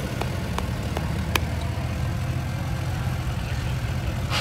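Heavy farm-machinery engine running steadily with a low, even rumble, with a few sharp clicks in the first second and a half.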